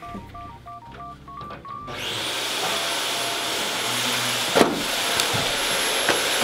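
A faint electronic beeping tune, then about two seconds in a vacuum cleaner switches on suddenly: a loud, steady rush of air with a high whine, and a sharp knock partway through.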